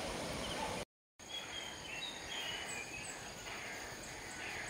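Outdoor ambience: a steady rushing noise that cuts out briefly about a second in, then a quieter background with small birds chirping several times and a faint, steady, high insect tone.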